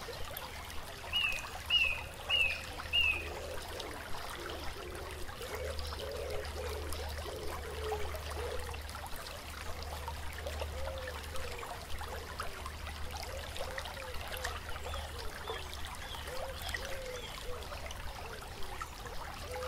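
A stream trickling and gurgling steadily. A small bird gives four short, quick, falling chirps about a second in, and fainter chirps come again near the end.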